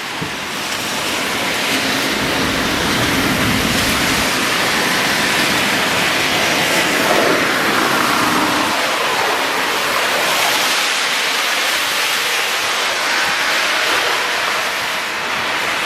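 Heavy rain pouring down on a city street as a steady, even hiss, with a low rumble a few seconds in.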